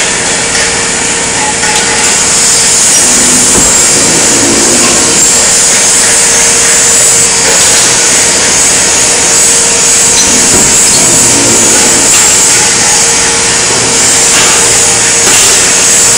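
Sheet-metal workshop machinery running, the press brakes used to bend steel sheet among it: a loud, steady hiss with a constant hum underneath.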